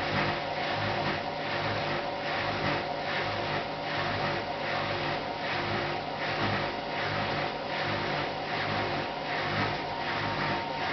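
Hotpoint NSWM 843C washing machine running, its inverter motor turning the drum. There is a steady motor whine and a rhythmic swish about twice a second.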